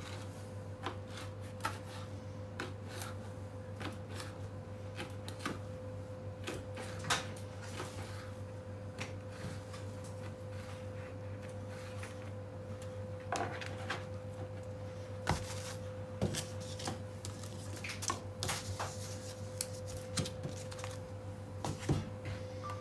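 Butcher's knife cutting lamb flank into spare ribs between the bones, with irregular clicks and taps of the blade on a plastic cutting board, over a steady hum.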